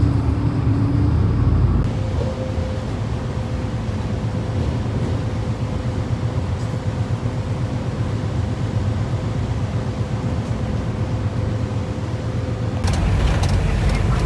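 Engine and road noise inside a moving bus, a low rumble. About two seconds in it drops to a steadier, quieter hum with a faint steady tone, and near the end the louder rumble returns with a few rattling clicks.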